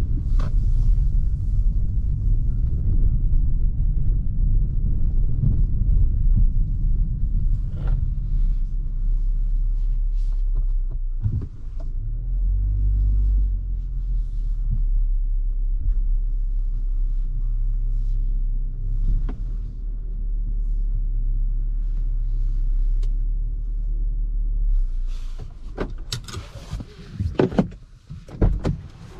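A steady low rumble of engine and road noise inside the cabin of a CAOA Chery Tiggo 8 with the 1.6-litre petrol engine. Near the end the rumble drops away and a few sharp clicks and knocks are heard.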